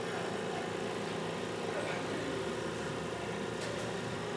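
Steady hum of a body-weight-supported treadmill running during assisted walking.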